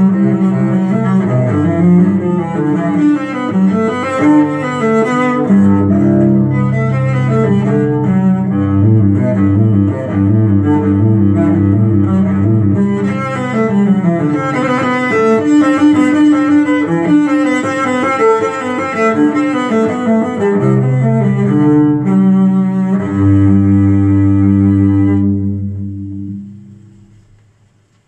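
Slow, low-pitched cello music played from a vinyl record through hi-fi loudspeakers, closing on a long held low chord that dies away near the end.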